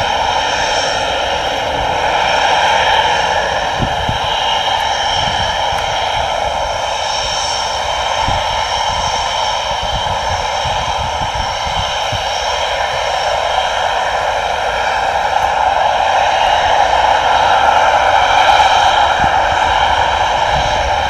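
Panavia Tornado's twin RB199 turbofan engines running loud and steady: a broad jet rush with a high whine over it, swelling a little near the end.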